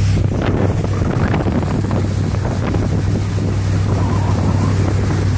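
A vehicle engine running with a steady low hum while vehicles move through deep floodwater, with a rushing, splashing noise of water over it.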